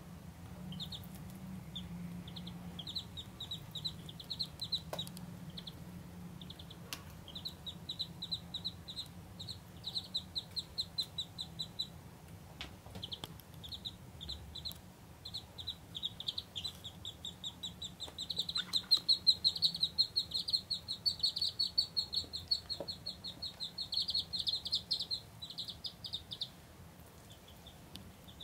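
Ducklings peeping: runs of short, high peeps, many a second, coming in bursts with brief pauses and growing busiest and loudest a little past the middle.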